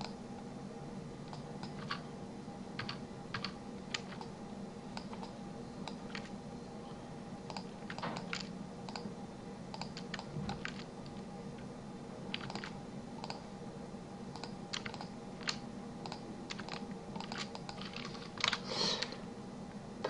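Irregular clicking of a computer keyboard and mouse, with a louder flurry of clicks near the end, over a steady low hum.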